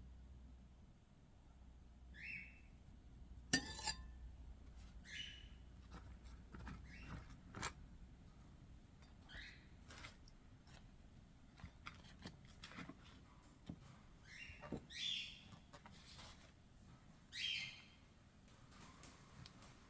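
A knife clicks and taps against a plate while cutting sponge cake into cubes, with a louder knock about three and a half seconds in. Short, high chirps come several times, the loudest two near the end.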